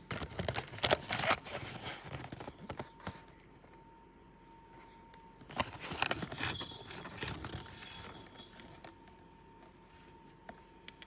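Hockey card packs and cards being handled: rustling and scraping in two stretches, one in the first few seconds and another about halfway through.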